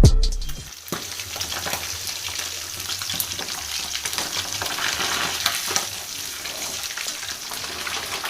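Fish frying in hot oil: a steady sizzling crackle with scattered small pops. The tail of music fades out in the first second.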